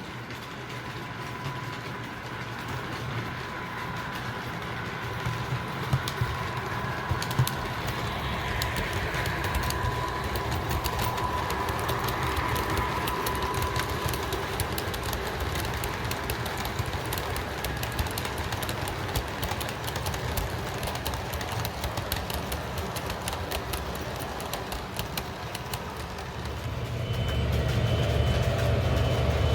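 O gauge MTH model diesel locomotive running, its Protosound speaker playing a low diesel engine rumble over the fine clicking of wheels on the track. It grows slowly louder, with a clear step up near the end.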